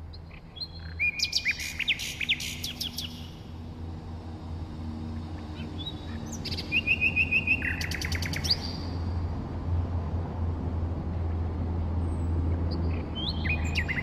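Nightingale singing: two song phrases, each of clear whistled notes breaking into rapid runs of repeated notes, and a third phrase starting near the end, over a steady low background rumble.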